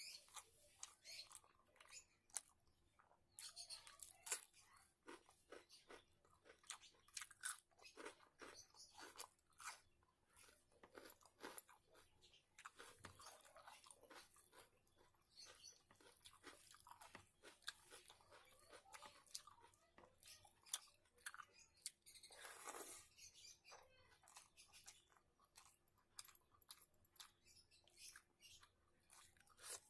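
A person chewing and crunching food up close, a steady run of many short crunches and clicks.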